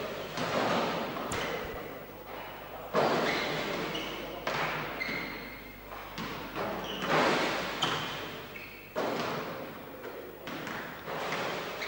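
Basketballs bouncing on a wooden gym floor: a heavy thud every second or two, each one ringing on in the echo of a large, bare hall.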